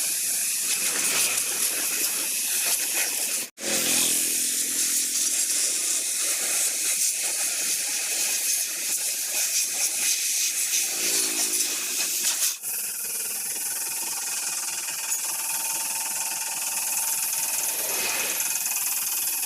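Pressure washer spraying a motorcycle: a loud, steady hiss of water jet over the washer's motor, cut off abruptly twice.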